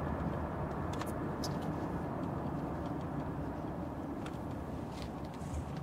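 Steady road and engine noise inside the cabin of a moving 2008 Toyota Camry, with a few faint clicks.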